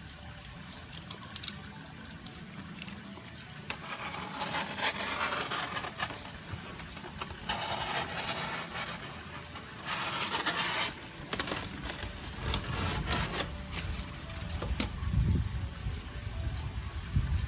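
Packing tape being ripped off a styrofoam box and the lid pulled free: three long scraping, tearing bursts in the middle, then low bumps as the box is handled near the end.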